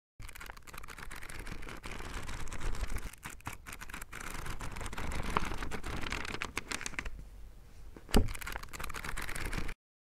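Book pages riffling rapidly, a dense fluttering of many quick page flicks that swells and eases, with one sharp snap near the end.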